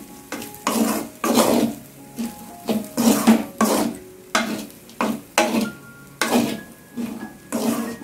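Wooden spatula stirring and scraping fried rice around an aluminium kadai, one stroke about every half second to second, mixing salt and pepper through the rice.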